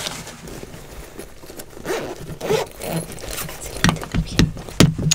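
Close-mic handling sounds as make-up items are rummaged through and picked up: scraping and rustling about two seconds in, then a few sharp knocks near the end.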